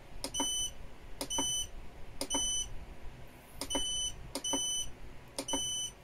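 Hybrid solar inverter's control panel beeping as its buttons are pressed to page through the display: six short, high beeps about a second apart, each starting with the click of a button press.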